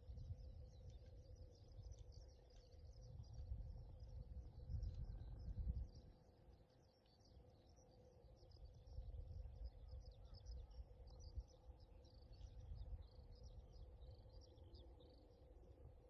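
Faint, busy chirping of small birds, with a low rumble that rises and falls underneath and a faint steady hum.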